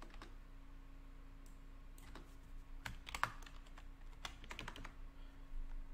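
Computer keyboard typing and mouse clicks: scattered, irregular keystrokes, busiest in the middle, over a faint steady electrical hum.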